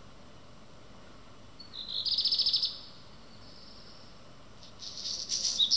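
Black redstart singing: two short song phrases, each a brief whistled note followed by a fast, rattling series of high notes. The first comes about two seconds in and the second starts near the end.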